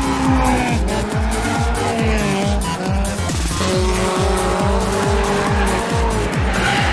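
Music with a steady, fast kick-drum beat, about three beats a second, mixed with the sound of cars drifting and tyres squealing.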